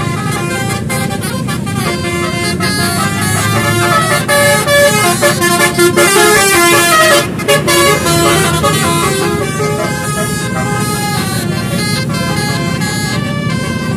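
Multi-tone basuri (telolet) vehicle horn playing a tune of quick, changing notes over vehicle engine noise, loudest in the middle.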